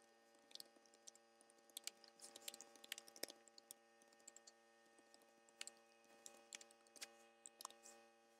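Faint computer keyboard typing: irregular key clicks, several a second, over a faint steady hum.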